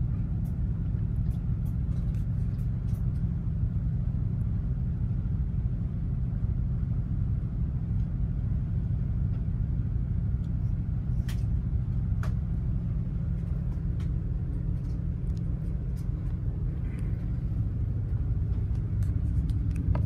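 Container ship under way, a steady low rumble with a few faint clicks around the middle.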